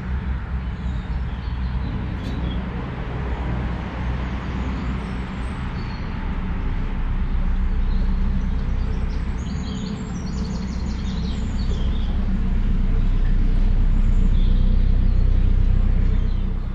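Narrowboat's diesel engine running steadily as the boat cruises, a low rumble that grows louder in the second half. Birds chirp a few times around the middle.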